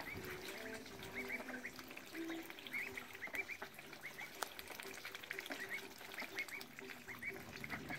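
A flock of domestic ducks calling, with short high notes in quick runs of three or four and lower short calls in between. Scattered clicks and splashes come from bills dabbling in a tub of water.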